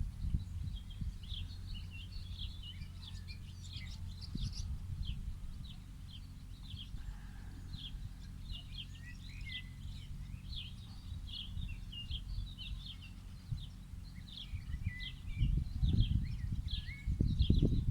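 Small birds chirping outdoors, many short rapid chirps overlapping throughout, over a low rumble that swells near the end.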